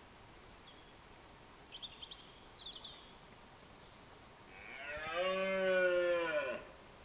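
Red deer stag roaring in the rut: one long roar of about two seconds near the end, falling in pitch as it dies away. A few small birds chirp briefly before it.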